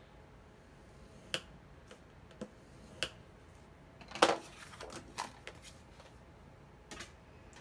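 Cardstock and a scoring board being handled on a craft mat: a few light taps and clicks, with a louder clatter about four seconds in as the paper is slid off and the board is moved away.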